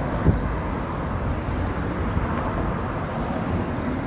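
Road traffic: a car and a box van driving past, a steady noise of engines and tyres, with one brief knock near the start.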